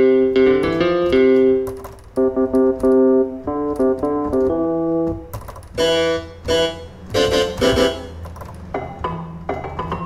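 Piano-like notes from a free sound-font software synth (QSynth), played live from a MIDI controller keyboard and heard through speakers. First come held chords, then shorter notes, then brighter, sharper-edged notes from about six seconds in, growing quieter near the end.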